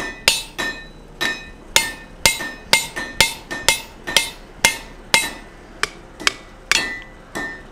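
Hand hammer striking a handled hot punch driving through a red-hot square steel bar on the anvil, punching the eye hole: steady blows about two a second, each with a short metallic ring.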